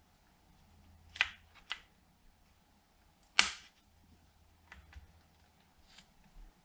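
A few sharp clicks and knocks of small saddlebag latch parts being handled and fitted: two close together about a second in, the loudest about three and a half seconds in, then a few fainter ones.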